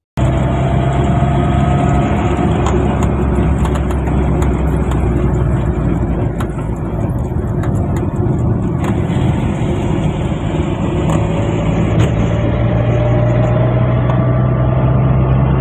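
Car driving along a road: steady engine hum and road noise from the moving vehicle, with a faint whine that rises in pitch near the end.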